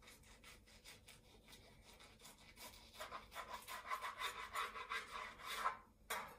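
Serrated knife sawing back and forth through nori-wrapped sushi rolls on a plastic cutting board: a rhythmic rasping of quick strokes. It is faint in the first half, louder from about halfway, and stops near the end after one last short stroke.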